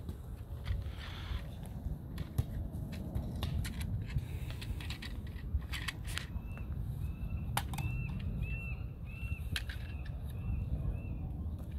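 Plastic toy trucks clacking and wood chips crunching under small hands, with a low steady rumble underneath. From about six seconds in, a bird chirps a short high note over and over, about two a second, for several seconds.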